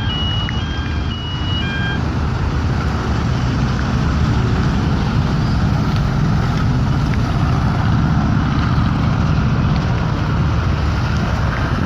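Car engine and road noise heard from inside the cabin as the car pulls away and drives on, a steady rumble that builds over the first couple of seconds. A short run of electronic beeps at alternating pitches sounds during the first two seconds.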